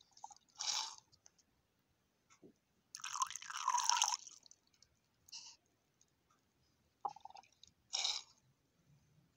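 Liquid pouring in a thin stream from a small nozzle into a plastic bowl, heard as several short splashy bursts; the longest and loudest lasts about a second, around three seconds in. Brief rustles of hands handling plastic come between them.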